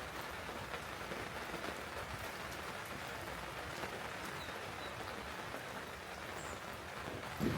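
Steady rain falling, an even hiss with a few faint drops ticking through it.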